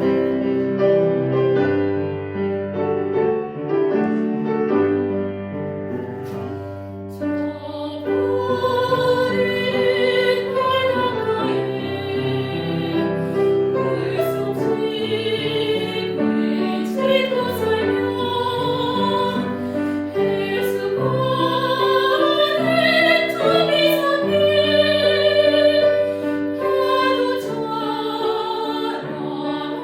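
Korean Buddhist hymn (chanbulga) with piano accompaniment: the piano plays alone at first, then a classically trained voice enters about seven seconds in and sings with vibrato over the piano.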